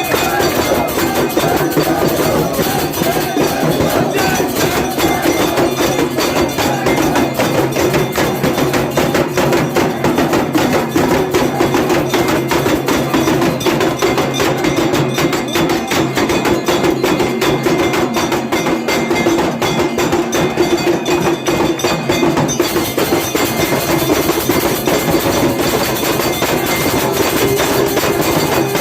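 Temple aarti percussion: drums and bells struck rapidly and continuously, a dense unbroken clatter over a steady tone.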